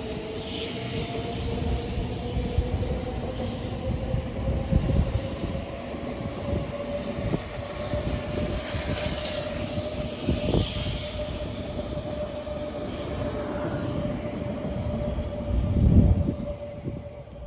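A train running past on the rails, its wheels knocking rhythmically over rail joints, with a steady whine that rises slightly at first and then holds. A heavy low rumble swells about a second and a half before the end, then the sound fades away.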